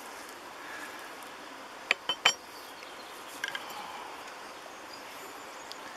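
Metal cutlery clicking against a wooden plate and stone. There are three sharp clicks about two seconds in, the last the loudest, and a short rattle of smaller clicks about a second later, over a faint steady outdoor background.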